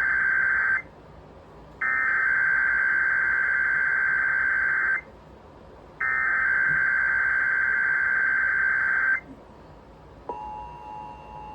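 Emergency Alert System SAME header: rapid warbling digital data tones sent in repeated bursts about three seconds long with a second's pause between them, the end of one burst followed by two more. About ten seconds in, the steady two-tone EAS attention signal begins.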